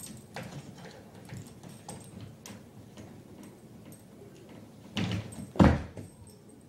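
A dog climbing a mesh baby gate: light clicks and rattles of its claws and the gate, then two thumps about five seconds in as it gets over, the second louder.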